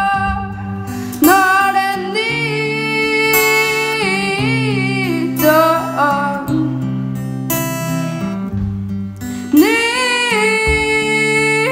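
A boy singing a song in phrases, strumming an acoustic guitar, over a band holding low sustained notes.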